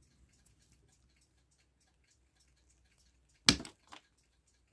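Side-cutting pliers bite through the pot-metal pinion hub of an old Westclox 66 clock wheel with one loud, sharp snap about three and a half seconds in, then a smaller click. The hub is being crushed apart to free the hardened pivot wire inside.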